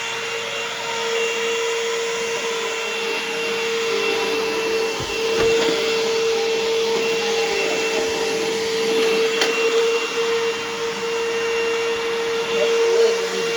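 Bissell CleanView Helix bagless upright vacuum cleaner running steadily, its motor giving a constant whine over the rush of air as it is pushed over the floor.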